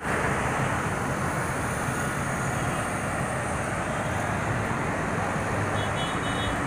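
Steady road traffic noise from cars passing on a wide city road.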